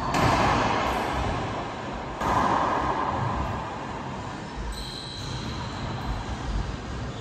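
Racquetball rally: the hollow rubber ball smacking off racquets and walls, with two loud hits, one at the start and another about two seconds in, each ringing out in the enclosed court, and lighter thuds between.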